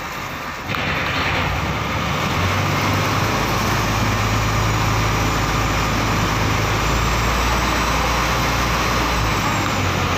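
Engine of a motorized outrigger pump boat running steadily under way, a low hum under a steady rush of wind and water. It dips briefly at the start and comes back louder just under a second in.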